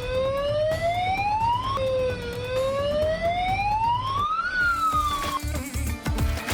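Air raid siren wailing: its pitch rises twice, drops back abruptly between the rises, then falls and cuts off about five seconds in. Background music with a low beat runs underneath and takes over near the end.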